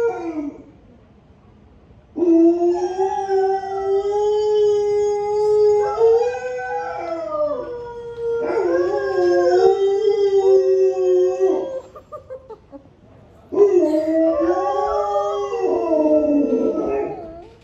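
Long drawn-out wolf-like howls in two runs with a short pause between, the pitch wavering up and down; in places two howling voices overlap.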